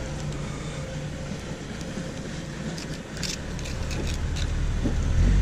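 A motor vehicle's engine rumbling, growing louder near the end, with a few faint clicks about three seconds in.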